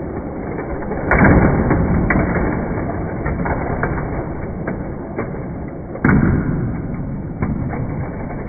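Hot Wheels toy cars running around a plastic Crazy 8 track with a steady rumble, broken twice by a sharp clack, about a second in and again about six seconds in, as cars collide.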